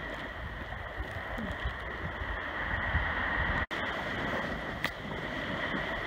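Low ocean surf washing up onto the sand, a steady wash of noise, with wind rumbling on the microphone. The sound cuts out for an instant a little past halfway.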